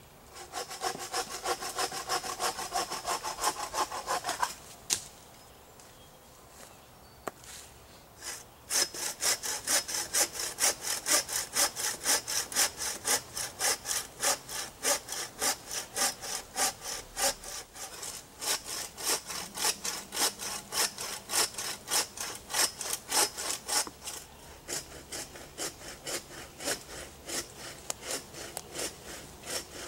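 Hand saw cutting through a fallen birch trunk with quick, even back-and-forth strokes. A short run of strokes stops a few seconds in, and after a pause of about four seconds the sawing starts again and keeps going steadily.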